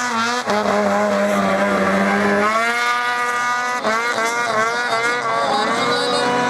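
Snowmobile engine running at high revs as the sled skims across open water, with a jet ski's engine alongside. The pitch holds steady at first, shifts about two and a half seconds in, dips briefly near four seconds, then climbs again.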